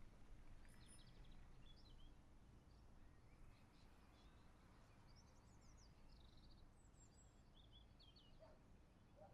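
Faint outdoor ambience: a low steady rumble with scattered small bird chirps and trills.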